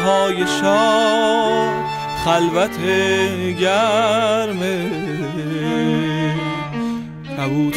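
Chamber ensemble of bowed strings, violins and cello among them, playing a slow melody. Held notes carry wide vibrato, and there are sliding notes between pitches.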